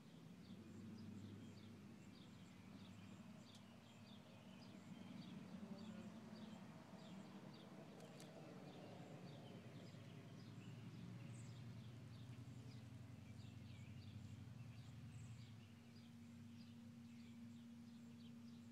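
Faint outdoor background: short high chirps repeating about two a second from a small animal, over a low steady hum.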